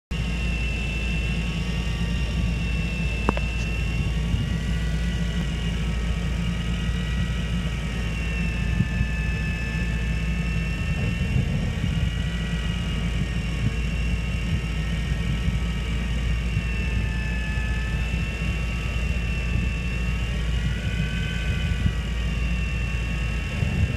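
Miyamae Command Z CZ-9 24V electric deep-drop reel winding in under heavy load, with a 7.3 kg beni-akou rosefish and a 2 kg iron weight on the line from about 1000 m down, at speed setting 13. It gives a steady motor whine that wavers slightly in pitch, over a steady low rumble.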